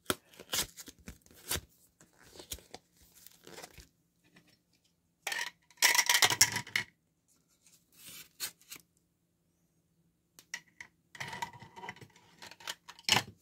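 Paper envelope being handled and torn at by hand: scattered short rustles and crackles, a longer loud tearing rip about five to seven seconds in, and another stretch of rustling near the end.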